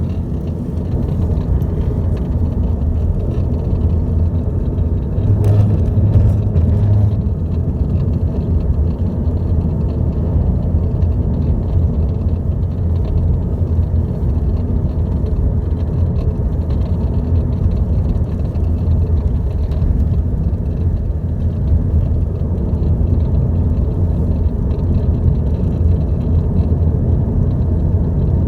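Steady low rumble of a 2012 Volkswagen Passat TDI heard from inside the cabin while it runs, with faint light ticks from a rattle in the dashboard.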